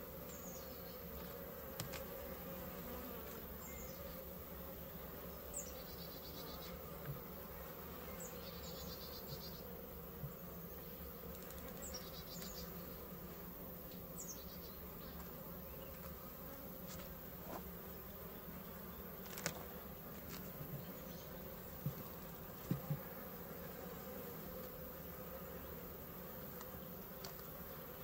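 Swarm of honeybees buzzing around an opened Layens hive, a steady hum. A few short sharp knocks come through, the loudest about two thirds of the way in.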